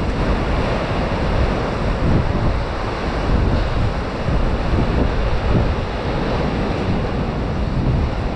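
Ocean surf breaking and washing below the pier, with wind rumbling on the microphone.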